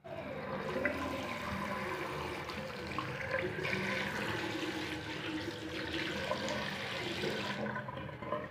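Water running from a bathroom sink tap into a ceramic basin, a steady splashing that starts suddenly and stops when the tap is shut off near the end.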